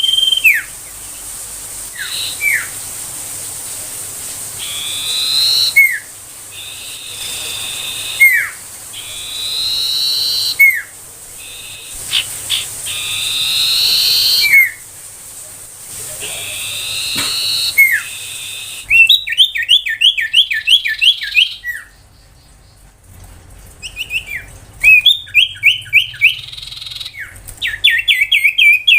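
Common iora singing: short sharp whistles sweeping downward alternate with longer, higher whistled trills. About two-thirds of the way through, this gives way to rapid runs of short repeated notes, several a second.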